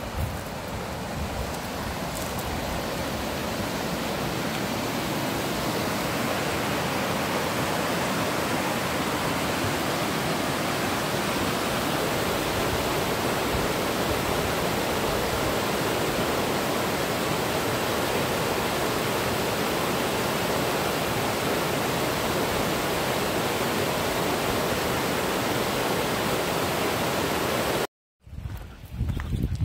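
Water of Trool rushing over white-water rapids below a footbridge: a steady, loud hiss of fast water that swells over the first few seconds. It cuts off suddenly near the end and gives way to footsteps on a gravel path.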